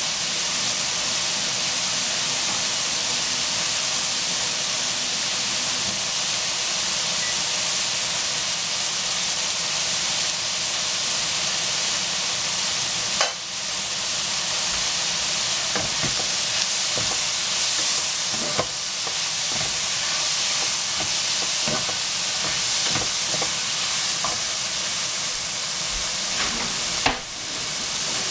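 Shredded cabbage and vegetables sizzling as they stir-fry in a wok, a steady hiss. In the second half a wooden spatula knocks and scrapes against the pan a few times as the vegetables are turned.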